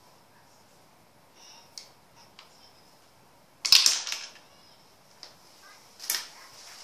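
Sharp clacks and knocks of hard plastic and wood from a toy tabletop pool table and its cue being handled: two loud clicks with a brief ring, one a little past halfway and one near the end, with a few faint ticks in between.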